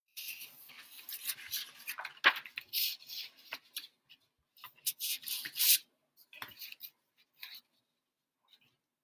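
Pen scratching and paper rubbing close to the microphone in short strokes, with one sharp tap about two seconds in; it stops near the end.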